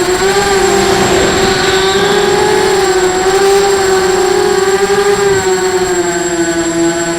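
Motors and propellers of a 250-size FPV racing quadcopter whining in flight, the pitch wavering up and down as the throttle changes.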